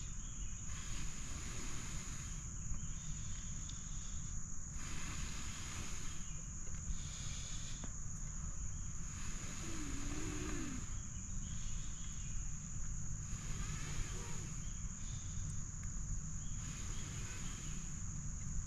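Someone blowing on a smouldering tinder bundle in repeated breaths, a hiss about every one and a half to two seconds, to get it to catch flame. A steady high insect drone runs underneath.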